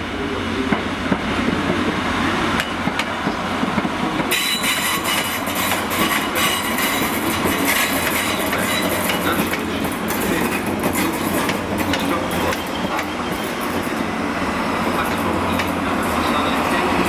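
Class 769 multiple-unit passenger train running past: a steady low rumble, with wheels clicking over rail joints and points. From about four seconds in the clicks and hiss grow denser, with a thin high wheel squeal for a few seconds.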